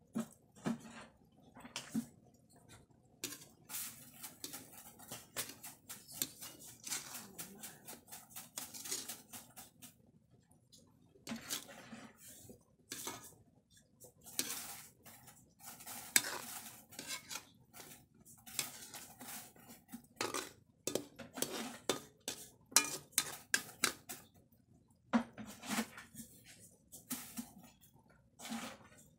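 Spatula scraping and knocking against a wok in irregular strokes, stirring chicken feet in a thick sauce.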